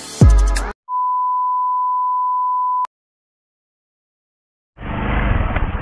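A steady, single-pitch electronic beep lasting about two seconds and ending in a click, coming right after a music beat with deep falling bass drums cuts off. A short stretch of dead silence follows, then a steady low rumble of street and engine noise starts near the end.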